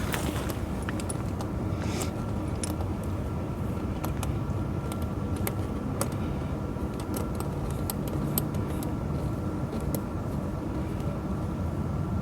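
Steel links of a tractor tire chain clinking and rattling in scattered sharp clicks as the chain is handled and adjusted, over a steady low hum.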